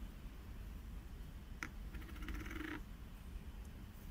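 Stainless steel ball valve parts handled during disassembly: a sharp click about one and a half seconds in, then a brief rapid rasp as the PTFE seat ring is worked out of the valve body.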